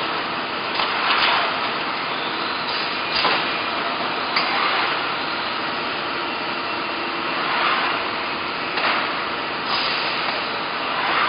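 Hexagon HG-802F high-frequency PVC welding press working: a steady machine noise with a few knocks and short hissy swells at uneven intervals as it cycles.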